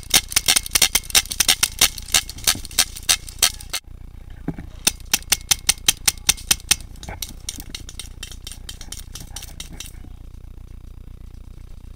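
Paintball marker firing in rapid strings of shots, several a second. The shooting cuts off abruptly about four seconds in, starts again in a second string about a second later, then thins to fainter scattered shots that die away near the end.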